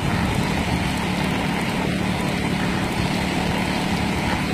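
Small motorbike engine running steadily with a low hum while riding, under rushing wind noise on the microphone.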